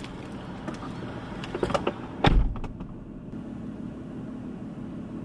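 A car door being handled and shut: a few light clicks, then one loud thud about two seconds in, followed by a faint steady hum.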